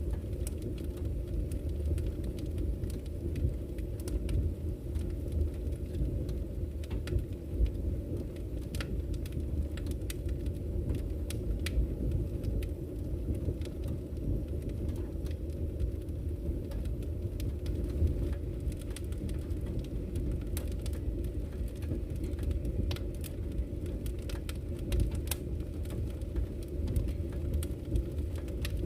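Wood fire burning in a fireplace: a steady low rumble of flames with irregular small crackles and pops from the burning logs throughout.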